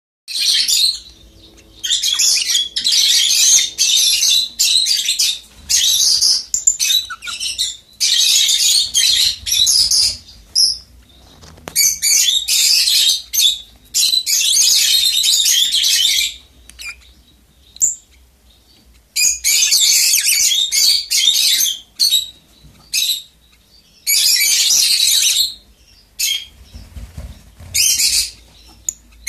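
Rosy-faced lovebirds chattering in shrill, high-pitched bursts of one to several seconds, with short pauses between, as the pair feed each other at the nest.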